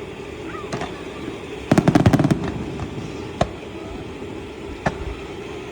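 Fireworks going off: a rapid string of crackling bangs about two seconds in, then two single bangs a second and a half apart, over a steady background din.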